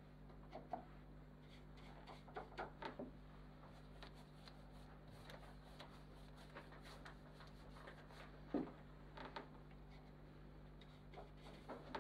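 Near silence with a steady low hum, and faint scattered clicks and knocks of paint pots and tools being handled on a work table. The loudest is a single knock about eight and a half seconds in.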